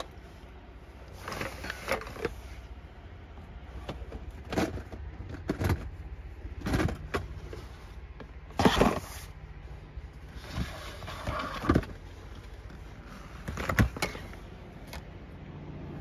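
Plastic storage containers and food packages being lifted out, moved and set down: scattered knocks, clatters and rustles, the loudest about nine seconds in, over a steady low rumble.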